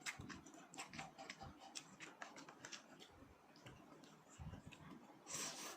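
Quiet eating sounds close to the microphone: many small chewing clicks and mouth smacks, with a short hiss about five seconds in.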